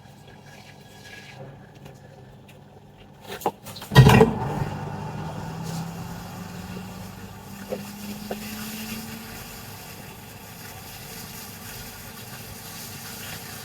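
A couple of sharp knocks about three and four seconds in, then a hot air rework gun blowing: a steady air hiss with a low fan hum that slowly rises in pitch as it spins up, used for desoldering corroded capacitors from a laptop motherboard.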